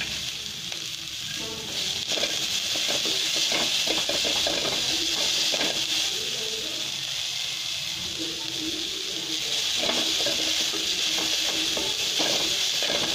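Shredded cabbage and sliced onion sizzling steadily in hot oil in a pan, stirred with a wooden spatula that scrapes and taps the pan now and then.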